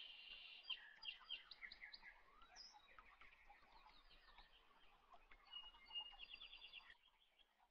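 Faint birdsong: small birds chirping with quick, repeated trills, one trill just at the start and another about six seconds in.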